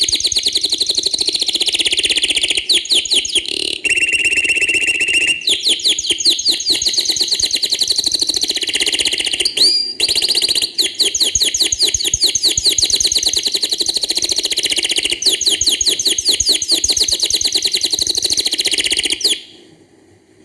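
Canary singing: a long, loud song of fast rolling trills and chirps, with one steady whistled note held for about a second and a half around four seconds in. The song stops abruptly near the end.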